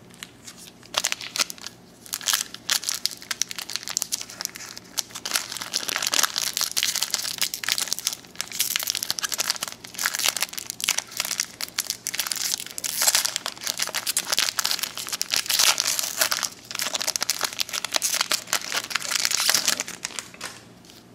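Foil wrapper of a 1993 Donruss baseball card pack being torn open and crinkled by hand, crackling in irregular fits from about a second in until just before the end.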